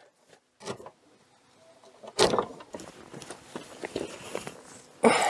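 Wooden post being handled and set down on a natural foundation stone: a sharp knock about two seconds in, a run of small taps and clicks, and another knock near the end.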